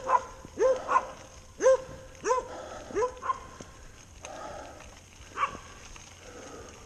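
Dogs barking repeatedly, short sharp barks about every half second, thinning out after about three and a half seconds with one last bark about five seconds in.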